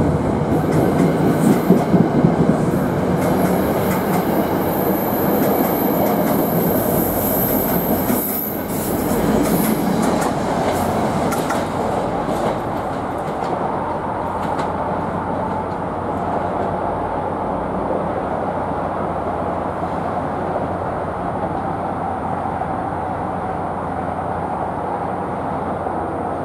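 NJ Transit commuter train pulling out of the station, its coaches rolling past with clickety-clack and a high wheel squeal for several seconds. After that it settles into a steadier, softer rumble as the train draws away down the track.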